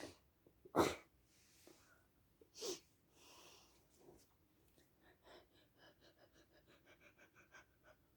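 Allergic sneezing set off by sniffing perfume: one short sneeze about a second in and a smaller, softer one near three seconds, with sniffing breaths between.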